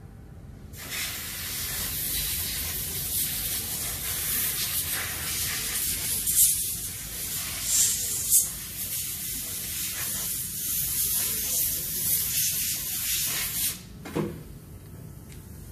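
A long, steady hiss of a spray jet, starting sharply about a second in and cutting off sharply near the end, with a few louder spurts midway.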